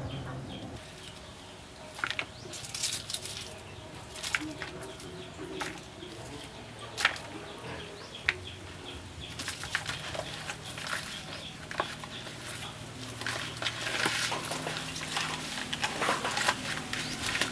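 Food being handled in a plastic bowl: a few separate sharp taps as chopped herbs and vegetables drop onto a whole fish, then a denser rustling from about halfway as hands rub the herbs into the fish.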